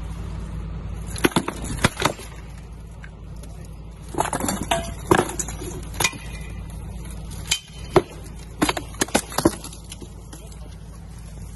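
Rebated steel swords clashing against shields and steel plate armour during sword-and-shield sparring: sharp metallic clanks in quick flurries about a second in, around four to six seconds in, and again near eight to nine and a half seconds in.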